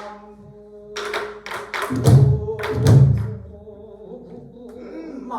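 Several pansori buk drums struck together: a quick run of sharp taps on the wooden frames about a second in, then two deep booms on the drumheads about a second apart. Under them, a singer holds a long note.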